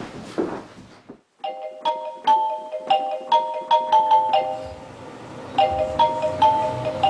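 Mobile phone ringing with a marimba-like ringtone: a short melody of struck, bell-like notes that stops briefly and starts over.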